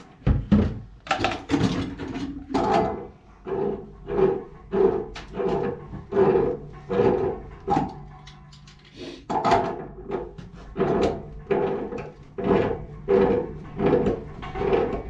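Repeated short creaking strokes, about one every half second to second, from a wrench being worked on a fitting on top of a water heater, pausing briefly about eight seconds in.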